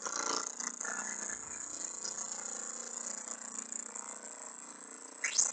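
An image file's raw data played back as sound in Audacity. It is a dense, harsh hiss and buzz with steady tones running through it, easing down slightly. About five seconds in it turns into a repeating sound that sweeps up and down in pitch about every two-thirds of a second.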